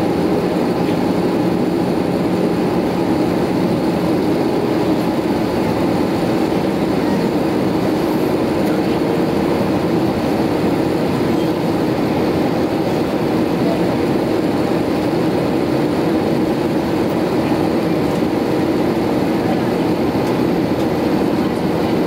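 Steady cabin noise of an Airbus A320-214 descending on approach, heard at a window seat over the wing: the hum of its CFM56-5B engines mixed with airflow rush, even and unbroken.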